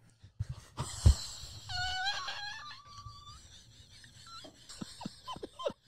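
A person's wheezing laughter: a breathy gasp, then a high-pitched squealing wheeze held for about a second and a half, trailing off into short faint gasps near the end.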